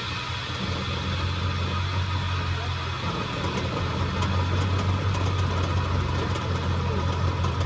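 Chevrolet vehicle's engine and drivetrain running with a steady low hum that grows a little louder about three seconds in. The drivetrain noise is being checked for a suspected bad 10-bolt rear differential.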